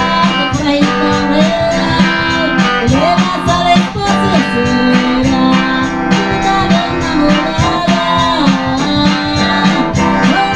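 Guitar strumming chords while a woman sings a melody over it.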